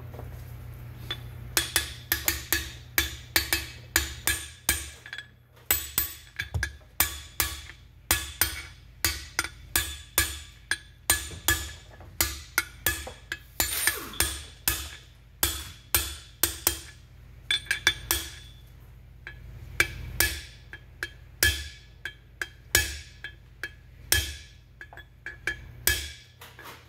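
Small hammer tapping a steel drift against the outer ring of a ball bearing to seat it in a cast-iron pump bearing holder. There are dozens of quick taps, two or three a second in runs with short pauses, and each one rings briefly with a metallic ping.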